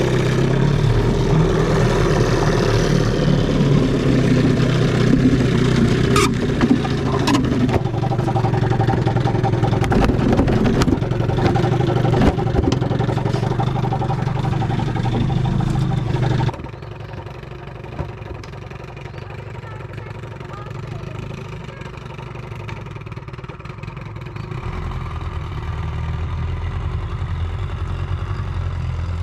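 Vintage Evinrude two-stroke outboard motor running steadily, having started right up after sitting unused for over a year. A little over halfway through, the sound drops suddenly to a quieter, lower running that swells slightly near the end.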